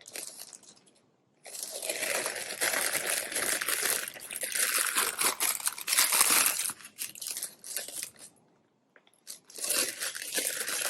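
Plastic packaging crinkling and crackling as it is handled and opened, in two long stretches with a short pause between.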